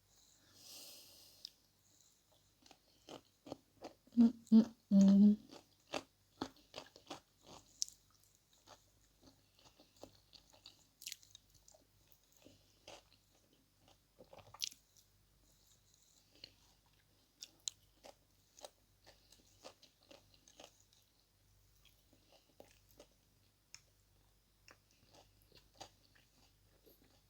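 Close-miked chewing and mouth sounds of someone eating, with many small sharp clicks scattered through, and a few short loud vocal sounds about four to five seconds in.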